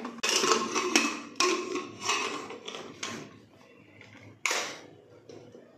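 Aluminium pressure cooker lid being twisted open and lifted off: metal scraping and clattering in short stretches, then a single sharp clank about four and a half seconds in.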